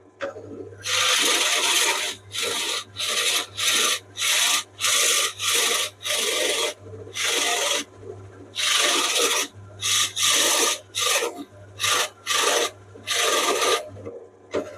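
Hole saw on a pillar drill cutting through plywood, rasping in about twenty short bursts as it is fed into the cut and eased off, over the steady hum of the drill motor.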